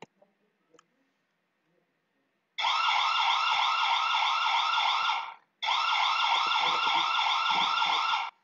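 Hikvision cube camera's built-in alarm siren set off by its PIR motion sensor: a loud, rapid electronic warble in two bursts of nearly three seconds each, with a short break between them.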